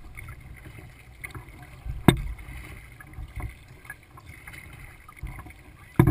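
Water lapping and sloshing against a plastic kayak hull under way, with a low rumble on the bow-mounted microphone. Two sharp knocks stand out, about two seconds in and again near the end.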